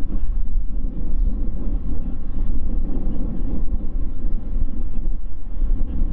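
Boeing 787-9's GEnx turbofan engines at taxi power as the airliner taxis slowly: a steady low rumble.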